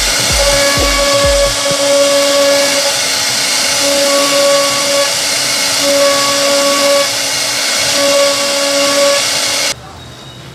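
CNC wood router cutting into a solid wood door panel: a loud, steady hiss from the spindle and bit, with a whine that comes and goes in roughly one-second stretches. It cuts off suddenly about nine and a half seconds in.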